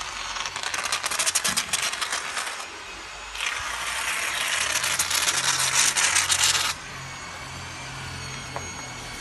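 Foam gun squeezing a bead of CT 84 polyurethane foam adhesive out of an aerosol can, heard as a crackling hiss. It runs for about two seconds, pauses briefly, then comes back longer and steadier and cuts off suddenly about seven seconds in.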